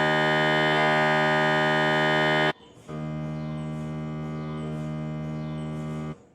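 MRI scanner gradient coils buzzing in a steady, organ-like drone during imaging. A conventional sequence plays first and stops about two and a half seconds in. After a short pause the same buzz returns clearly quieter under the noise-reducing Quiet Suite sequence.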